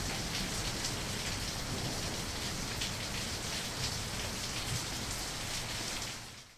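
Steady crackling hiss from the intro logo's sound effect, sounding like rain, fading out near the end.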